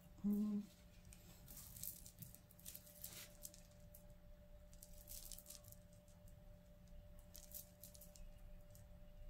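Faint, scattered clinks and rustles of costume jewelry (beaded necklaces and metal chains) being handled. A short hummed voice sound comes about half a second in.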